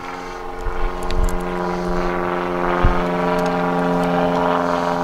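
A steady engine-like drone at an even pitch that swells over the first couple of seconds and then holds, with a few light clicks about a second in.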